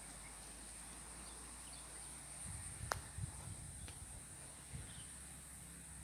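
Steady high-pitched insect drone with a few faint chirps over it. Wind buffets the microphone for about a second near the middle, and there is a sharp click about halfway through and a fainter one a second later.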